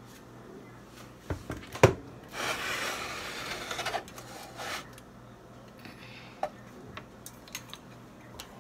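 Kitchen handling noises: a sharp knock a couple of seconds in, then about two seconds of loud rubbing scrape on a hard surface, a shorter scrape just after, and a few light clicks and taps near the end.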